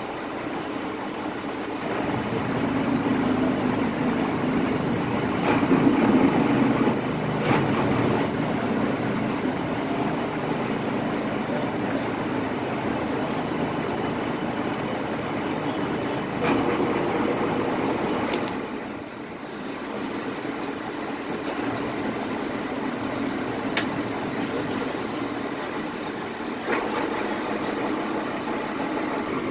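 Boat engine idling steadily while the boat is eased into the dock, with a few scattered knocks.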